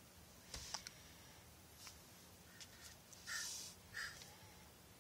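A few faint clicks as a new rusticated briar tobacco pipe is handled, then near the end two short airy draws of breath through its stem, testing the pipe's draw.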